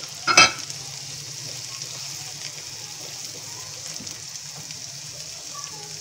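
Chopped capsicum and carrot sizzling steadily in hot oil as they are sautéed in a nonstick pan, with one sharp knock about half a second in and a low steady hum underneath.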